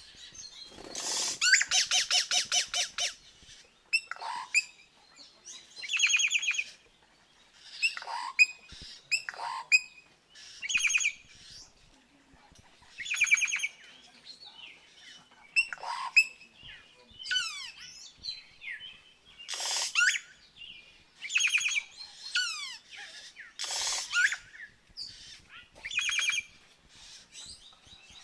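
Yellow-rumped cacique singing a varied string of short phrases every second or two. A rapid rattle opens it, followed by clear whistled notes and notes gliding up and down, with a few louder, harsher calls past the middle.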